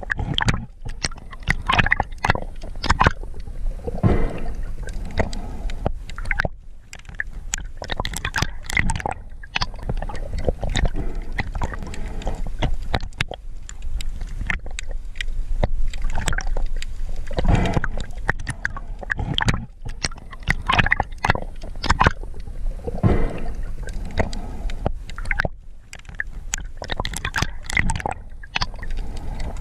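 Water gurgling and sloshing around an underwater camera while a diver swims, with uneven splashy bursts and short knocks every second or so.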